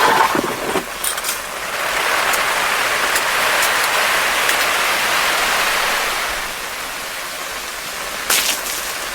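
Rushing water noise that swells about two seconds in and eases off around six seconds, with a few clicks and knocks near the start and near the end.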